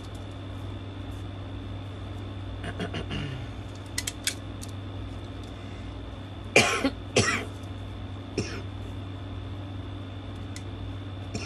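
A person coughing twice in quick succession a little over halfway through, over a steady background hum, with a few light clicks before and after.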